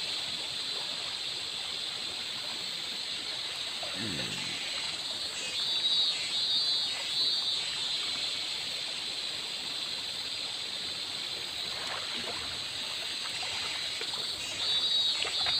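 Shallow river flowing steadily over a sandy bed and snags, a constant trickling rush. A high, rapid chirping comes in twice, a few seconds in and again near the end.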